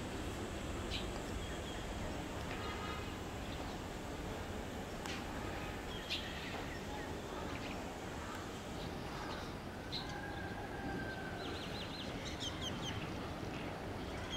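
Outdoor hill-town ambience: a steady background rush with birds calling now and then, ending in a run of quick repeated calls.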